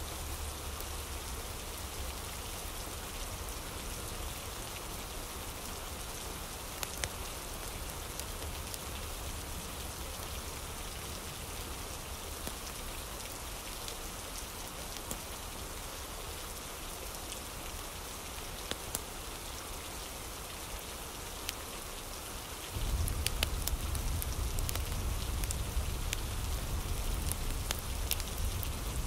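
Steady rain ambience, an even hiss of rain on a surface with scattered sharp ticks. A low rumble joins about three-quarters of the way through.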